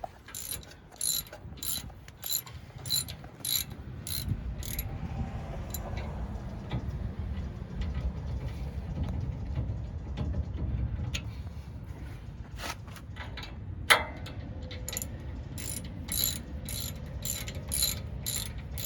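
Hand socket ratchet clicking in quick, even strokes, about two clicks a second, as bolts on the rear brake caliper of a Ford F-150 are run in. There are two bursts, one near the start and one near the end, with a single sharp knock between them.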